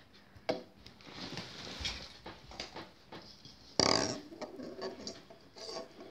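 Hollow plastic toy balls knocking and rolling on a wooden tabletop as a toddler handles them. There is a sharp tap about half a second in and a louder clatter just before four seconds.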